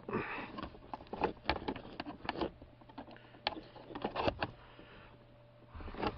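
Irregular light clicks and knocks of hard plastic parts being handled: wiring connectors and trim at the steering column, over a faint steady low hum.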